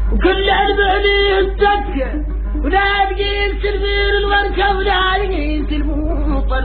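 A singer in a Mauritanian azawan-style song holding long, ornamented notes in two sung phrases, the second starting near the middle.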